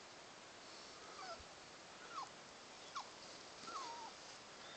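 A small dog whimpering, a few short high whines that fall in pitch, about one a second, at the sight of a deer.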